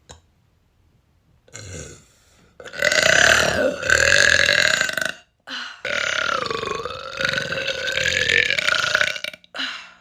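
A woman burping loudly twice: one long burp of about two and a half seconds, then after a brief pause a longer one of about three and a half seconds whose pitch wavers.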